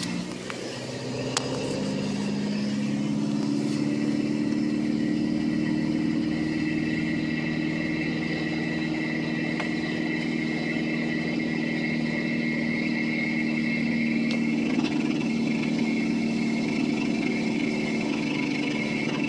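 Mitsubishi L200 pickup's engine running steadily, its speed rising a little about two seconds in and then holding, with a steady high whine over it: the odd noise the owner is trying to trace.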